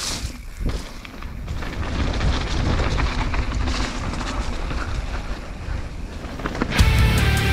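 Wind buffeting the microphone while a mountain bike descends rough trail, with frequent rattles and knocks from the bike over the bumps. Electric-guitar metal music comes in near the end.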